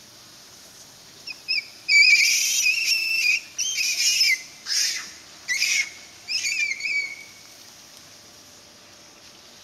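A run of shrill, wavering, whistle-like animal calls in several bouts over about five seconds, starting about a second and a half in, the loudest and longest about two seconds in.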